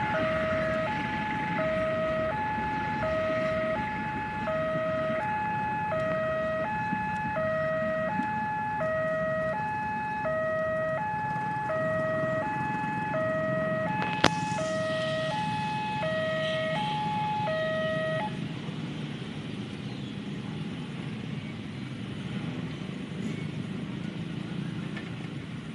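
Railway level-crossing warning alarm sounding an alternating two-tone electronic chime, low and high tones taking turns about twice a second over the rumble of a passing train. It stops about 18 seconds in and leaves a low background noise. There is one sharp click a few seconds before the end of the alarm.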